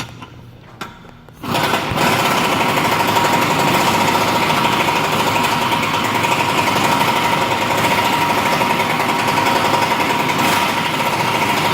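Impact wrench hammering steadily, starting about a second and a half in, as it turns a torsion bar adjuster bolt to raise one side of the truck's front end.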